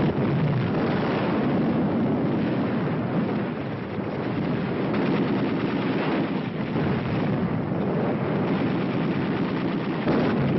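Artillery barrage: heavy guns firing continuously, the shots running together into one dense, steady din.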